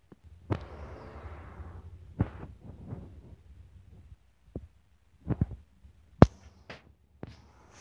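Irregular knocks and thumps from someone moving through an RV interior, with a low rumble during the first two seconds. The sharpest knock comes about six seconds in.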